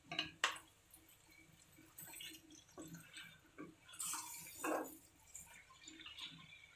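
Faint clinks and scrapes of a utensil in a pan as spaghetti is mixed into olive-oil sauce, with two sharp clicks near the start and a short hiss about four seconds in.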